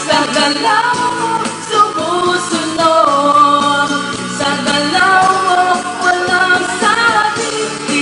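Pop song playing: a singing voice carrying a melody over instrumental backing.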